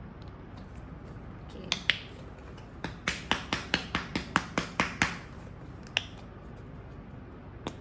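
Sharp clicks and taps from handling a paint tube: two at about a second and a half in, then a quick run of about ten over two seconds, then single ones.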